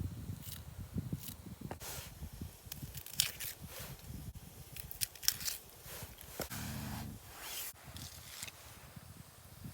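Irregular rustling and crunching with scattered light knocks.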